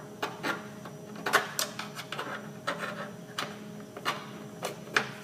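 Irregular clicks and light knocks as the drip tray support and its parts are handled and slid onto a whipped cream machine, its O-rings freshly greased.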